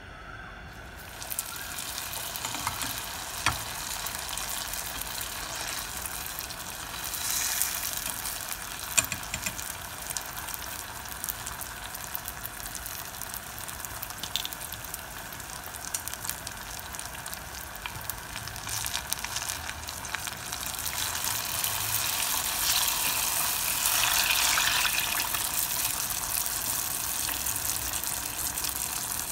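Hot oil sizzling as turon, banana spring rolls filled with sugar, deep-fry in a small pot. The sizzle starts about a second in as the first roll goes into the oil, runs steadily with occasional pops, and grows louder in the last third, when two rolls are frying.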